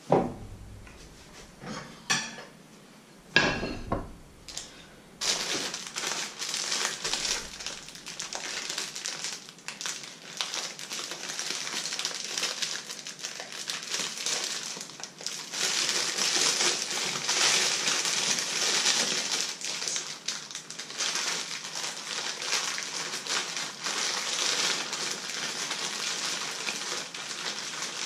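A few knocks and clatters, then from about five seconds in a frying pan on the stove sizzling steadily with a dense crackle.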